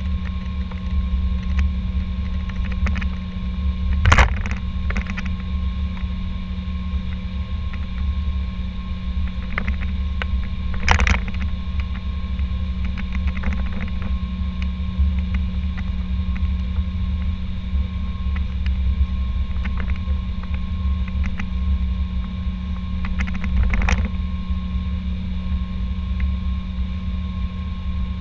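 Airbus A320 cockpit noise while taxiing: a steady low rumble with a constant hum and a few faint steady tones above it, broken by three brief knocks, about 4, 11 and 24 seconds in.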